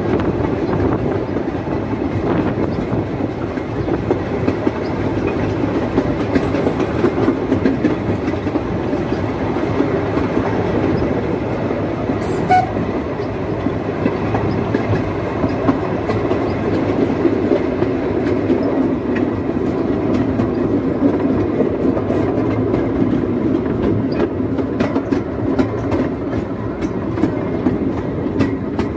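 Narrow-gauge steam locomotive and its train running steadily along the line, heard from the wagon coupled directly behind the engine, with the wheels clattering on the track.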